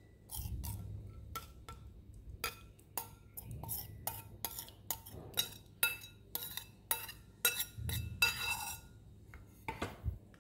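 Metal spoon clinking and scraping against a stainless steel mixing bowl as thick ginger-chilli sauce is scraped out into a small ceramic bowl: repeated short ringing clinks, about two a second.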